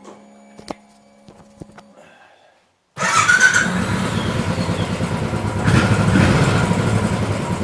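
Royal Enfield Bullet/Classic 500 EFI single-cylinder engine: a faint steady hum with a few clicks, then about three seconds in the engine fires and runs at idle, briefly louder a few seconds after it catches. The idle is even now that the leaking EVAP vacuum line that made it run lean has been sealed off.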